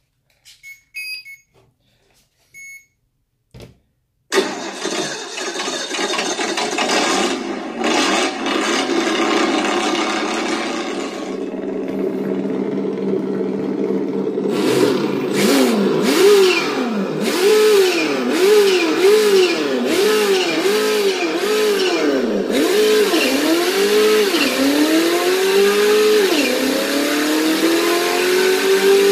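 Redcat Gen8 RC crawler's electric motor and drivetrain whining as it runs, starting abruptly after a few faint clicks. From about halfway the pitch swings up and down in quick repeated swells, about one or two a second, as the throttle is worked, then in longer sweeps near the end.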